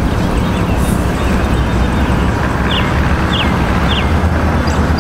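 Steady low rumble of a running vehicle, heard from inside it. Three short high chirps come about half a second apart a little past the middle.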